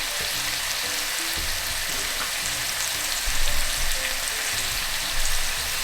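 Seasoned duck pieces sizzling steadily as they fry in a hot pot.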